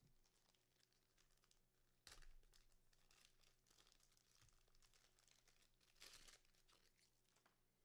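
Faint crinkling and tearing of foil trading-card pack wrappers as packs are opened and handled, louder about two seconds in and again about six seconds in.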